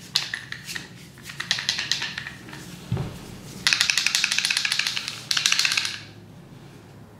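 Gear stowed inside the hollow handle of a Gerber Bushcraft Hatchet rattling as the hatchet is shaken, in two quick runs of rapid clicking about halfway through. Before that, scattered clicks and knocks from the handle and its cap being handled.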